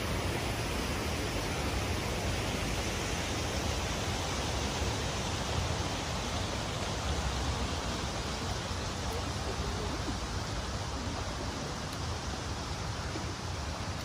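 Steady rushing of the Akerselva river's flowing water, an even hiss with no breaks.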